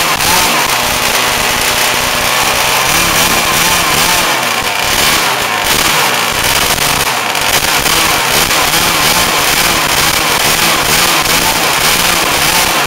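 CRRC GW26i 26cc water-cooled two-stroke gas engine of an RC boat running on the bench, its pitch wavering up and down as the throttle is opened a little, never past a quarter throttle.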